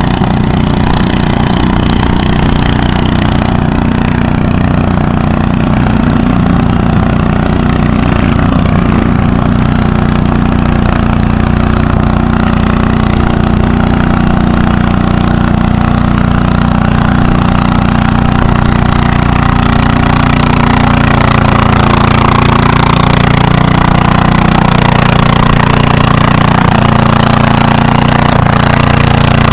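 John Deere garden tractor's engine running hard under load, pulling a weight-transfer sled at a steady pitch, getting louder toward the end as it comes closer.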